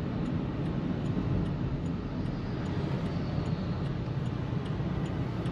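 Cabin noise of a Volkswagen Polo TSI GT running on CNG while rolling slowly in traffic: a steady low rumble of engine and tyres. A faint, even ticking, about three a second, comes from the turn-signal indicator.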